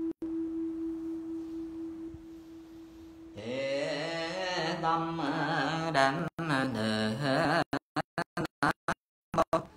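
A temple bowl bell rings out in one steady tone, fading over about three seconds. About three seconds in, a voice begins chanting Buddhist invocations in a wavering, melodic line. Near the end the sound cuts out repeatedly in short gaps.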